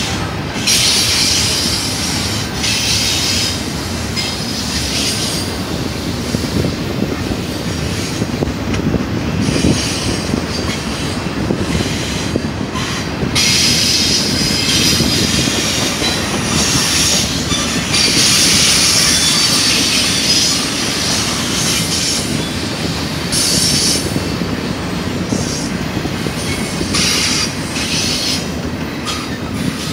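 BNSF double-stack intermodal train rolling past close by: steel wheels running on the rails with a steady noise, and high-pitched wheel squeal that comes and goes every few seconds.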